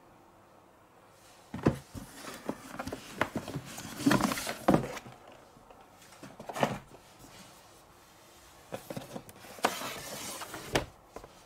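Cardboard box and packaging being handled as a hard carrying case is lifted out. There are scrapes, rustles and several sharp knocks in irregular bursts, starting after a short quiet moment.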